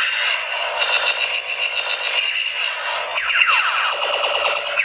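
A battery-powered musical light-up toy gun plays its electronic sound effects. A steady, warbling high tone gives way, about three seconds in, to a quick run of falling pitch sweeps, and the sound cuts off suddenly at the end.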